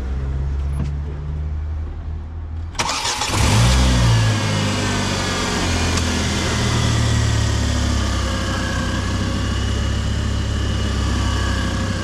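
Ford Mondeo Mk4 2.5T inline-five engine starting about three seconds in after a low steady hum. It catches with a quick rev that rises and falls, then settles to a steady idle with a thin high whine on top. This is the first start with the newly fitted auxiliary drive belts and tensioner.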